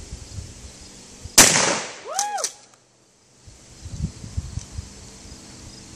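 A single shotgun shot about a second and a half in, a sharp report that dies away over about a second.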